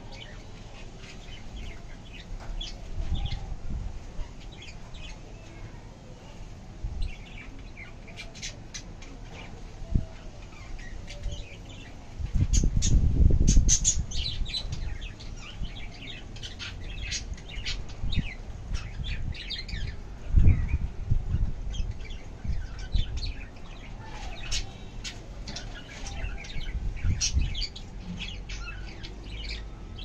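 Cockatiels chirping in short, scattered calls. A low rumble from about twelve to fourteen seconds in is the loudest sound, with another low thump around twenty seconds.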